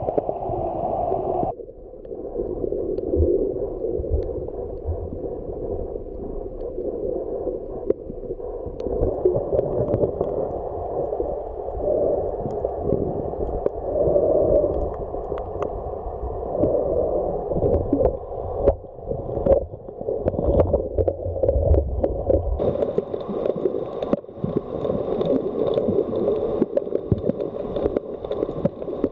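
Muffled underwater sound from a camera in a waterproof housing: water gurgling and sloshing, with many scattered sharp clicks and knocks. The sound changes abruptly a few times, and a faint steady high tone joins in for the last few seconds.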